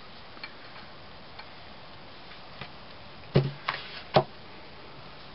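Light metallic clicks and clinks of a wrench working on the connecting rod cap inside a Kohler K181 engine's open crankcase. A few scattered ticks come first, then three sharper knocks between about three and a half and four seconds in, the last one the loudest.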